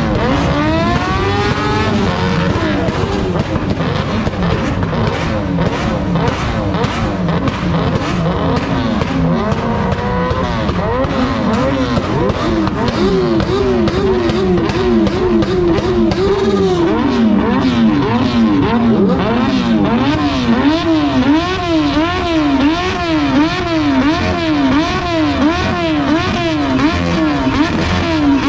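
Motorcycle engines revved hard while standing still, the throttle blipped up and down again and again, with crackling exhaust pops as flames shoot out of the exhausts. From about halfway through, one engine settles into a steady rise-and-fall of about one and a half revs a second.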